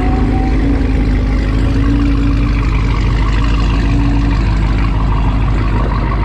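Steady, loud drone of a car engine running, with a low hum and a held tone.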